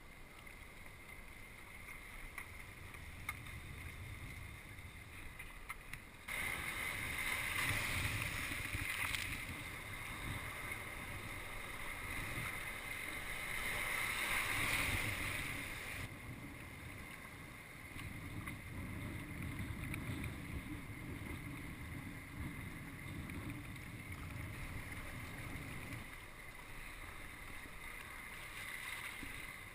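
Sea kayak out on the water: wind buffeting the microphone with a steady low rumble, and water washing around the hull. A louder hiss of rushing water starts abruptly about six seconds in and stops about ten seconds later.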